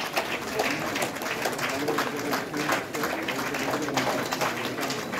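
Audience clapping steadily in scattered, irregular claps, with voices talking over it.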